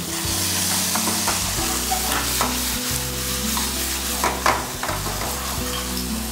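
Sauce sizzling in hot oil in a non-stick frying pan as a steel ladle stirs it, with a few short scrapes and taps of the ladle against the pan.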